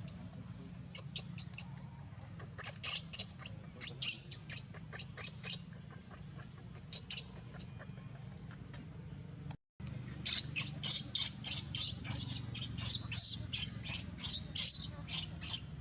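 Many short, high-pitched animal chirps and squeaks in quick irregular runs, growing denser in the second half, over a steady low hum. The sound drops out for a split second a little past halfway.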